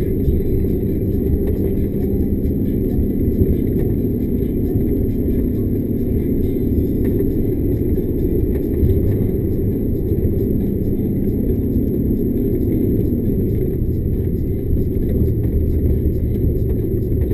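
Loaded timber lorry's diesel engine and drivetrain running steadily, heard from inside the cab as a constant low drone.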